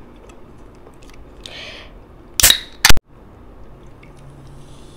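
Aluminium drink can being opened: the ring-pull snaps the seal with two sharp cracks about half a second apart, the second the louder. Near the end the drink is poured over ice into a glass with a faint fizz.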